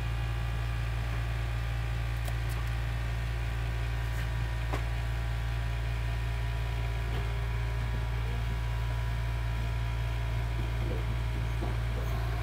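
Steady low electrical hum with a faint hiss, and a few faint soft clicks scattered through it.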